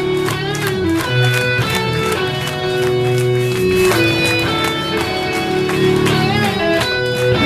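Live post-hardcore band playing: electric guitars hold notes and bend them, about half a second in and again near the end, over regular drum hits.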